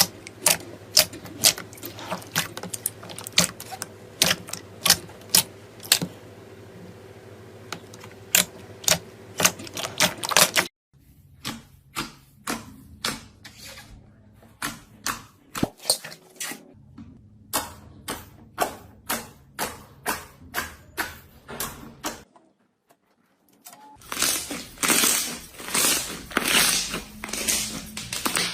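Clicky slime worked by hand, popping with sharp clicks about two or three times a second. Near the end it gives a denser run of crackling squishes.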